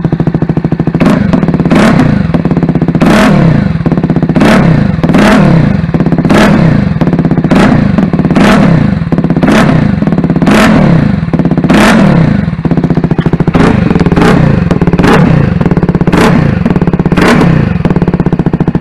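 CFMoto 300SS's single-cylinder engine through a Yoshimura GP-Force slip-on exhaust with the sound baffle out. It idles and is blipped about once a second, each rev rising quickly and falling back to idle.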